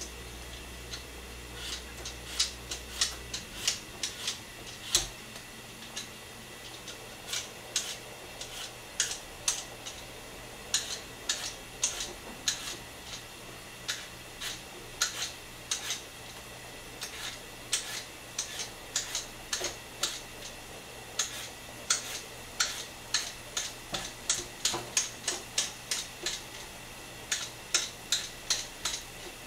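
Korean radish (mu) being peeled off to the side: a long run of short, sharp scraping strokes, irregular and often several a second, over a faint steady hum.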